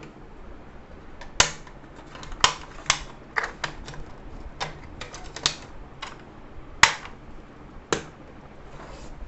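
Hard plastic pencil box clicking and snapping as its spring-button compartments, trays and lid are pushed shut. About a dozen irregular sharp clicks; the loudest is about seven seconds in.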